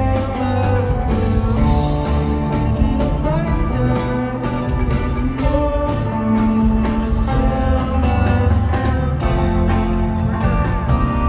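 A rock band playing live: a singer over electric guitar, bass and drums, the music steady and full throughout.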